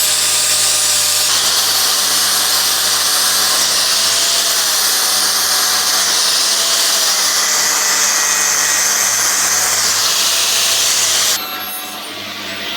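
Angle grinder working the welded steel frame, a loud, steady hiss of the disc on metal with the motor's whine, dropping away abruptly near the end.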